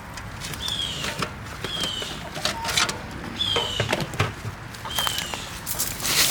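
Chickens foraging, with scratchy rustles and clicks, and a short high call that falls in pitch, repeated about every second or so.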